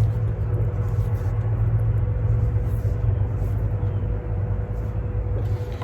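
A steady low hum with a faint constant higher tone above it, unchanging throughout.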